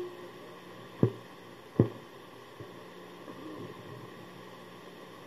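A pause in a home recording: steady low hum and hiss, with two sharp knocks about one and two seconds in.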